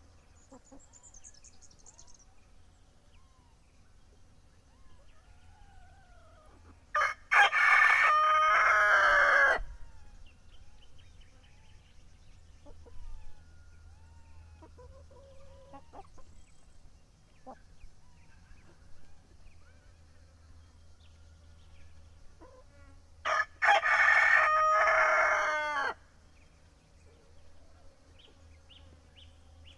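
Rooster crowing twice, two loud cock-a-doodle-doos of about two and a half seconds each, some sixteen seconds apart. Faint bird chirps and clucks come in between.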